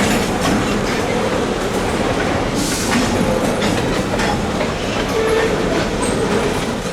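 Freight cars rolling past on jointed track, wheels clicking unevenly over the rail joints under a steady rumble. A brief hiss comes about two and a half seconds in.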